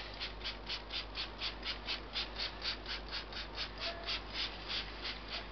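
Hand trigger spray bottle squirted rapidly over and over, about four short hissing sprays a second, misting the bees on top of the hive to clear them off.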